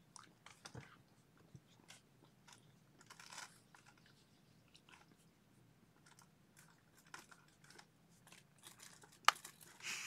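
Faint, irregular crunching and clicking like chewing, with one sharper click about nine seconds in.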